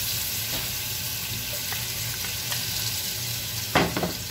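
Chopped garlic sizzling steadily in hot cooking oil in a pot, with a few sharp knocks near the end as a wooden spatula strikes the pot.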